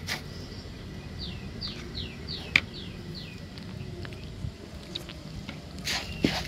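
A run of six short, high chirps, each falling in pitch, about two a second, from a small animal, with a single sharp click in the middle of the run. Near the end, brief rustling as the crushed-biscuit mixture is worked by hand in a plastic bowl.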